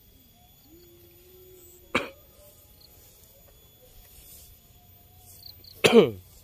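A person coughing twice: a short, sharp cough about two seconds in and a louder, throatier cough that drops in pitch near the end.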